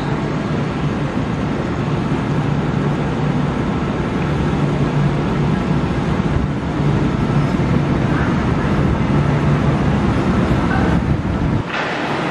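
V-set double-deck intercity electric train pulling into the platform, its wheels rumbling and motors humming steadily, growing slightly louder as the cars draw level. Near the end the rumble drops away and a brief hiss comes in.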